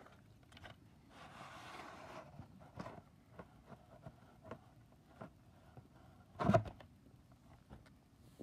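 Quiet handling of a plastic VHS cassette and its case: scattered light clicks and taps, a soft rustle about a second in, and one short louder knock about six and a half seconds in.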